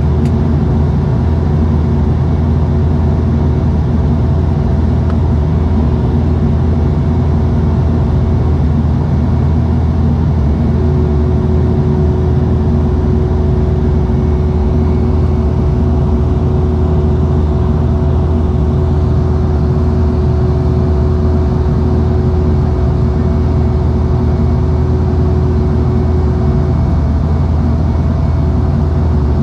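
Cabin noise of a Bombardier Dash 8 Q200 in flight, heard beside the wing: a steady, loud drone from its Pratt & Whitney PW123 turboprops and propellers, a deep hum with a few steady tones above it. One of the higher tones drops out briefly about nine seconds in and again near the end.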